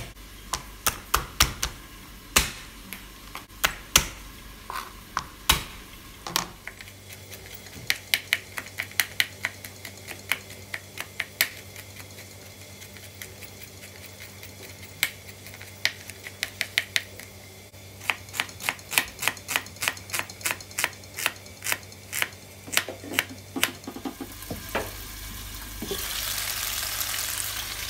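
Knife chopping garlic on a plastic cutting board, in quick runs of sharp strikes with short pauses. Near the end, chicken simmering in a covered pan gives a steady sizzling hiss, with a glass lid clattering.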